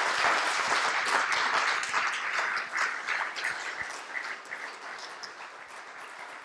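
Audience applauding, loudest in the first few seconds and slowly dying away.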